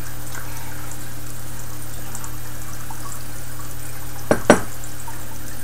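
Steady hiss with a low hum in a small room, broken by two quick, sharp knocks about four seconds in.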